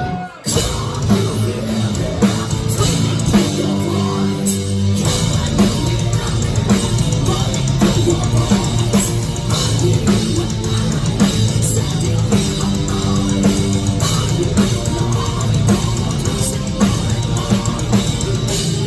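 Heavy metal band playing live, with distorted guitars and a driving drum kit and no singing. The music breaks off for a moment about half a second in, then carries on at full level.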